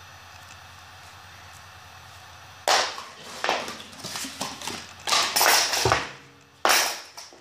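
Cardboard phone box pieces being handled: after a faint hiss, a series of loud, irregular scraping and rustling sounds of cardboard sliding and rubbing starts about two and a half seconds in.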